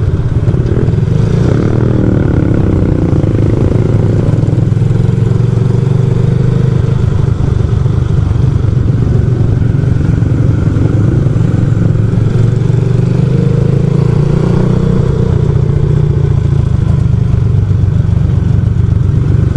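Yamaha Lagenda 110ZR moped engine, built to a 63 mm tuning spec, running steadily while riding, heard from on the bike over wind noise.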